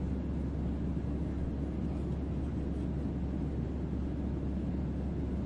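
Aircraft cabin noise in flight: a steady, unchanging low rumble.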